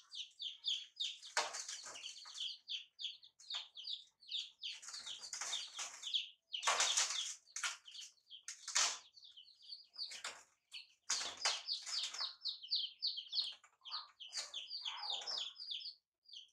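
Baby chicks peeping continuously, short high peeps several a second, with repeated loud bursts of scrabbling and wing-flapping as the chicks scramble about in a metal basin.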